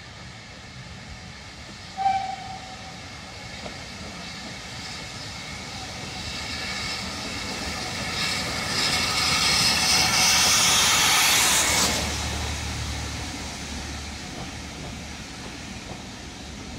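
A steam locomotive hauling a passenger train approaches and passes directly beneath, its hissing exhaust growing louder to a peak and then cutting off sharply as the engine goes under. The low rumble of the carriages rolling over the track follows. A short sharp tone sounds about two seconds in.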